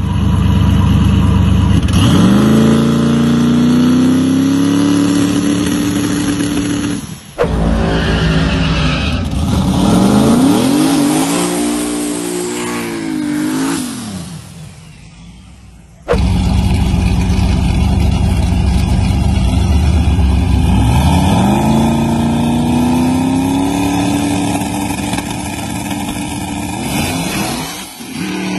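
V8-swapped Mazda Miata drag car engine, loud throughout. It rises to a high rev and holds there on the two-step launch limiter. After a cut about seven seconds in, it is revved up and down in repeated sweeps. After another cut it runs hard again, its pitch climbing and then holding high.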